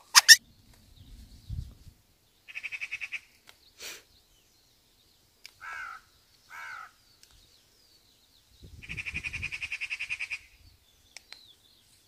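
A trapped young thrush held in the hand giving harsh distress calls: a short fast chattering rattle, a single call, two falling squawks, then a longer chattering rattle near the end. A sharp snap at the very start is the loudest sound.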